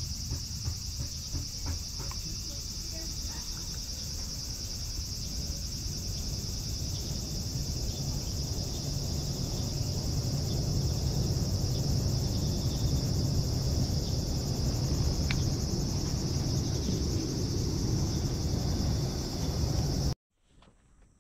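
A steady, high-pitched chorus of insects, with a low rumble under it that grows louder about halfway through. All of it cuts off abruptly near the end.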